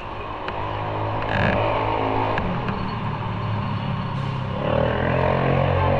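Motorcycle engine running under load as the bike accelerates, its pitch climbing about a second in and again near the end.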